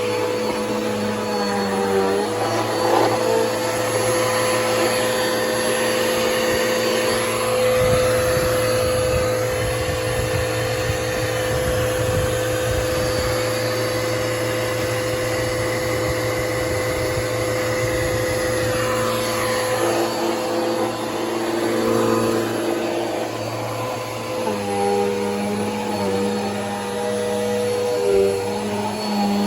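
Bissell PowerForce Helix upright vacuum cleaner running steadily. Its motor hum shifts pitch a few times, about two seconds in, around twenty seconds and again near twenty-five seconds.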